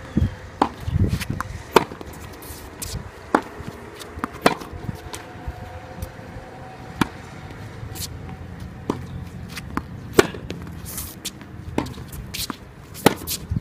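Tennis balls being hit with rackets in practice play: a dozen or so sharp pops at irregular intervals, roughly one a second.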